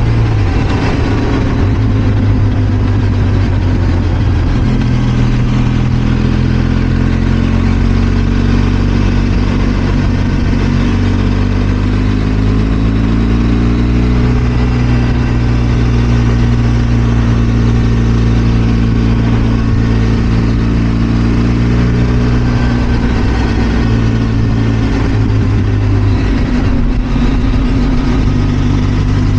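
Benelli TRK 502 X's parallel-twin engine running as the motorcycle is ridden, its note shifting with throttle and gear changes: a change about five seconds in, a slow rise around the middle, and a drop and recovery near the end.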